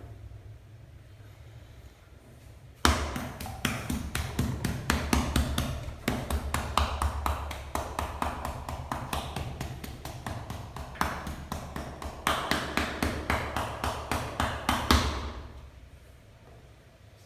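Rapid rhythmic percussive massage: a masseur's hands striking the body in quick succession, about five or six strikes a second. The strikes start about three seconds in, come in runs with short breaks, and fade out near the end.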